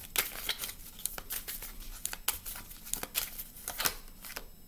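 A deck of tarot cards being shuffled by hand: an irregular run of quick papery flicks and taps as cards are slid and dropped from one hand to the other.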